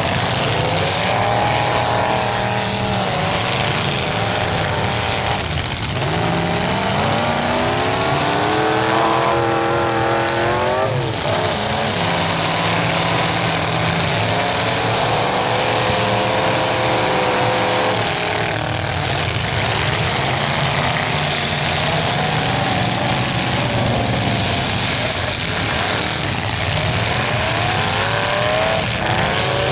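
Several demolition derby cars' engines revving hard at once as they push through the mud, their pitch rising and falling again and again over a constant engine din.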